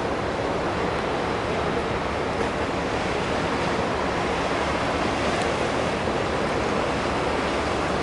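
Steady rushing noise of the ferry Phivos moving past close by: its engines' rumble blended with the churn of water stirred up by its propellers.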